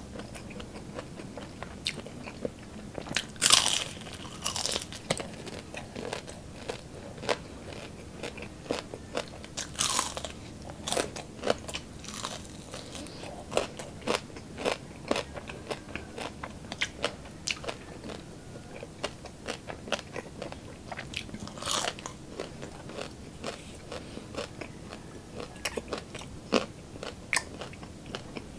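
Close-up crunching and chewing of crispy deep-fried chicharon bulaklak (pork mesentery), with many sharp crackles and a few louder crunching bites, the loudest a few seconds in.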